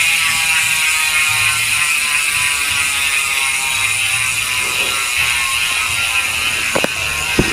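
Maxzone Stroke 1.0 bicycle rear hub freewheeling with only three pawls, clicking so fast that it runs together into a steady, loud buzz. Two sharp knocks come near the end.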